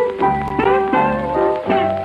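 Band music with brass instruments playing, the notes changing several times a second.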